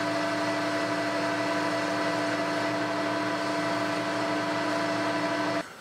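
Metal lathe running while facing the end of a steel workpiece: a steady hum with a clear whine from the drive. It cuts off suddenly near the end.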